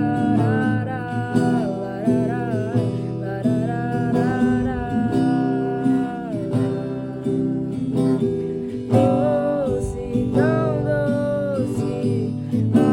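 Worship song: acoustic guitar accompaniment with a wavering melody line over it, carried by a voice that the recogniser caught no words from.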